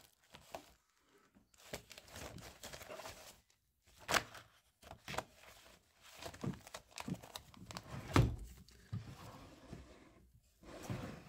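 Someone moving about among clutter: irregular crunches, rustles and knocks, the sharpest about four and eight seconds in.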